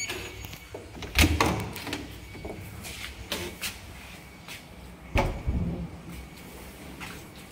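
A series of knocks and clunks: two loud ones about a second in, lighter knocks a couple of seconds later, and another loud pair just past five seconds.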